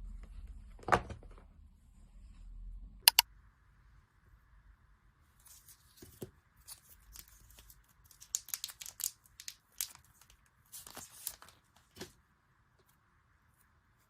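Paper or foil packaging being torn open and handled by hand. A sharp click about a second in and a loud double click at about three seconds are followed by a run of tearing and crinkling that stops near the end.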